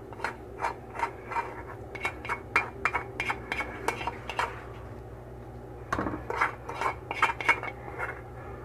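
A spoon scraping and knocking against a frying pan as fried onion and tomato are scraped out onto a plate: a run of irregular clicks and scrapes that thins out about halfway and then starts again.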